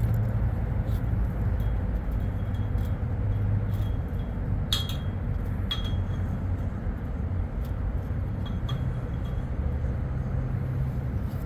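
Light metallic clinks and rattles from an old wire cage trap being set up, with two sharper ringing clinks near the middle, over a steady low background rumble.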